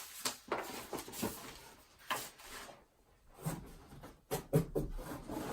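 Handling noise from sneakers and a cardboard shoe box: a run of light knocks and rustling, with a sharper knock a few times.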